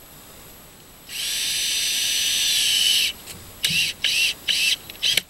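Cordless drill driving a long screw through a door hinge into wood: one steady whine of about two seconds, its pitch dipping slightly near the end, then four short trigger bursts to seat the screw.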